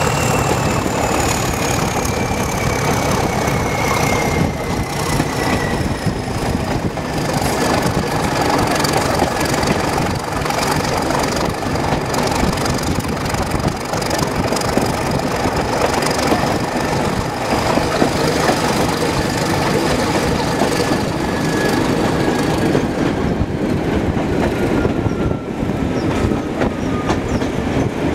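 Diesel locomotive running along the line, heard from beside its cab: steady engine and wheel-on-rail noise with clicks over the rail joints. A high whine falls slowly in pitch throughout.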